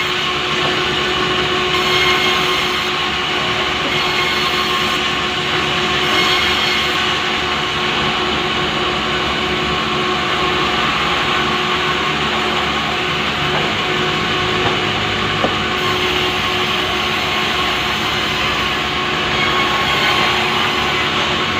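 Power saw running steadily as it rips lengthwise through a large pulai log, a continuous loud cutting noise with a steady machine tone.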